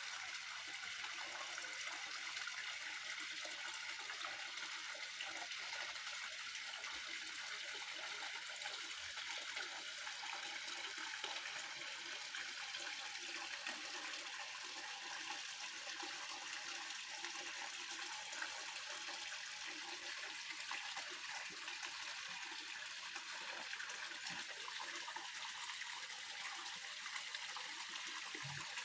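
Small waterfall splashing and trickling steadily into a garden pond.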